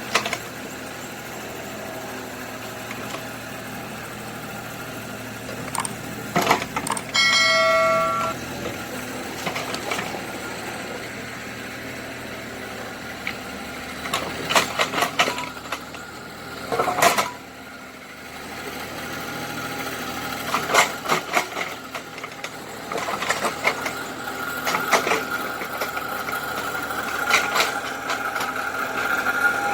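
Small excavator working: a steady motor hum under bursts of metal clanking, with one ringing clang about seven seconds in and a steady whine coming in over the last several seconds.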